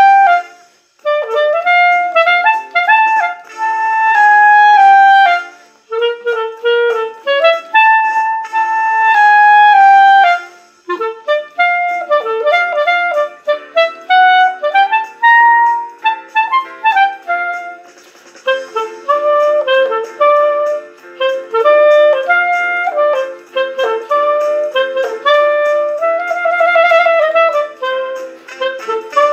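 Buffet Prestige clarinet playing a blues-jazz melody in phrases with short breaks between them, ending on a held note with a wide vibrato near the end.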